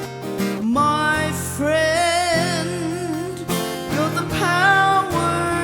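Background music: a Christian worship song with acoustic guitar and a melody line held with vibrato.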